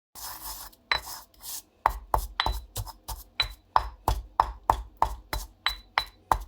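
A knife chopping on a cutting board in a steady rhythm, about three strokes a second, starting about two seconds in. Before that comes a short rustling scrape and a single knock.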